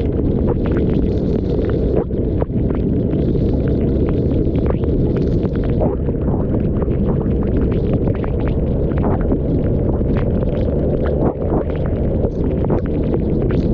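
Wind rumbling over a GoPro's microphone on a Yamaha TMAX scooter riding in the rain: a steady, muffled roar, with many small sharp taps, the raindrops hitting the camera.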